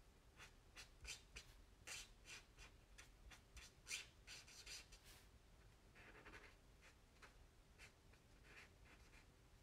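Tri-blend alcohol marker stroking across vellum, faint and quick, a few short strokes a second.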